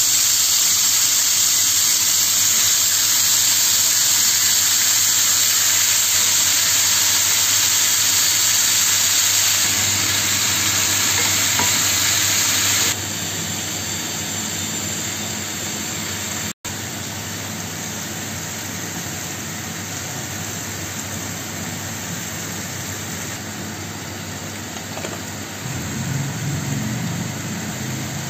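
Diced potatoes frying in hot oil in a cast iron pan: a steady sizzle that drops suddenly to a softer hiss about halfway through.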